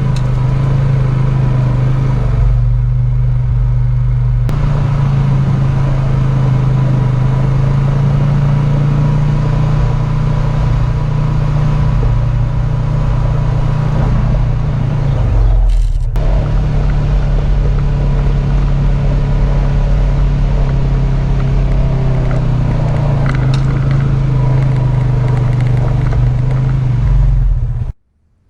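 Vehicle engine and road noise while driving: a steady low hum with rumble, easing briefly twice, then cutting off abruptly near the end.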